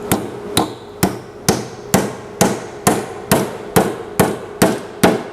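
Hammer driving nails into the wooden handle of a toolbox: steady, evenly spaced strikes, about two a second.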